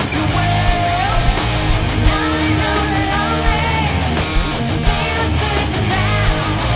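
Live hard rock band playing: distorted electric guitars over bass and a steady drum beat.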